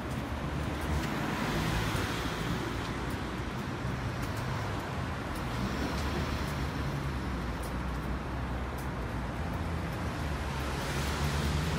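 City road traffic: car engines and tyres in a steady rumble, swelling as vehicles pass about two seconds in and again near the end.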